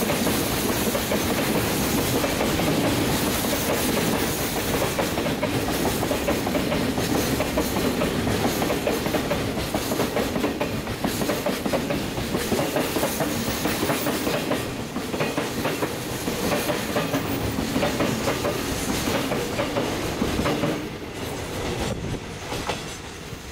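A freight train of tank wagons rolling past, its wheels clacking over the rail joints. The sound drops near the end as the last wagons move off.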